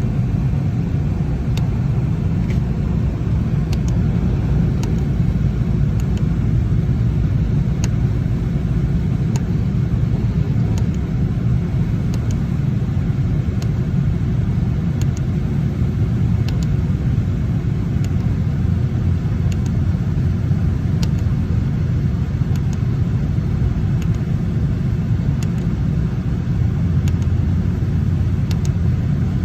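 Lennox HVAC unit running with a steady low rumble.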